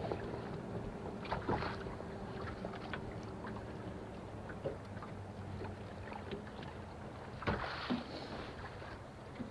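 Low steady hum of a bow-mounted electric trolling motor, with a few light knocks from rod and reel handling about a second and a half in and again near the end.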